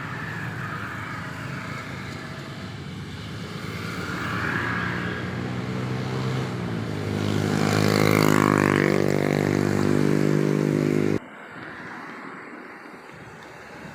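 A motor vehicle engine passing close by, growing louder to a peak about eight seconds in with a slight shift in pitch, then cutting off suddenly about three seconds before the end, leaving fainter traffic hum.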